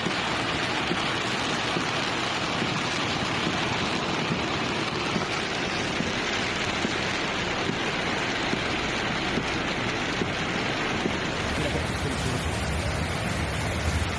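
Steady rushing noise of heavy rain and floodwater. About eleven seconds in it turns deeper, with a stronger low rumble.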